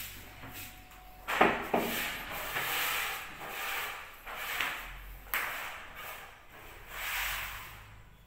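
Rustling and rubbing noises in uneven swells, with sharp knocks about a second and a half in and again near five seconds in, as plastic sheeting and fittings are handled.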